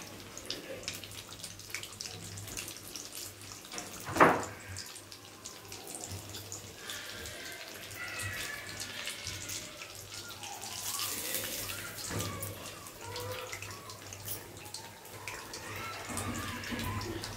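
Hot oil sizzling and crackling steadily around a bread-crumb-coated pomfret fillet deep-frying in an iron kadai. There is a single sharp knock about four seconds in.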